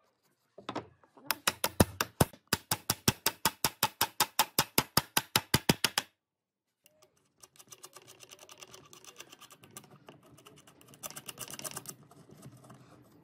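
Claw hammer tapping a steel bolt through a wooden rail: a quick, even run of sharp strikes, about six a second, that stops after about five seconds. Faint handling noises follow.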